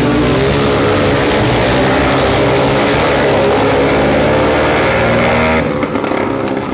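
Several racing quad bikes' engines running hard at high revs on a dirt track, the sound falling away sharply near the end.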